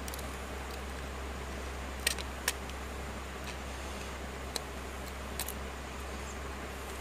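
A few small, sharp clicks of metal tweezers touching a smartphone's circuit board and frame, two close together about two seconds in and fainter ones later, over a steady low hum.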